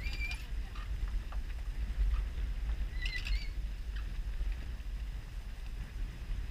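Wind rumbling on the microphone aboard a sailboat, with a few light knocks and two short high squeaks, one at the start and one about three seconds in.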